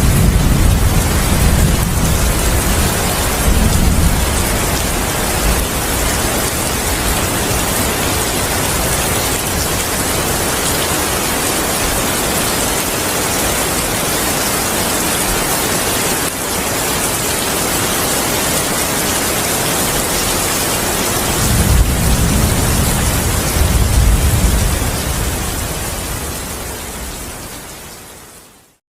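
Steady heavy rain with thunder rumbling at the start and again about three-quarters of the way through. The whole storm sound fades away near the end.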